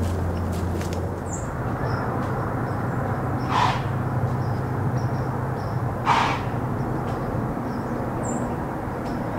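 Outdoor woodland ambience: a steady low hum under a faint, even noise, with scattered faint high bird chirps. Twice, about two and a half seconds apart, a short harsh call stands out.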